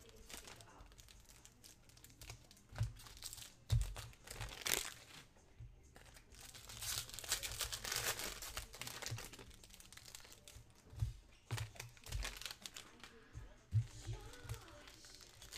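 Foil wrappers of trading-card packs crinkling and tearing as they are handled and opened, with a few dull knocks scattered through.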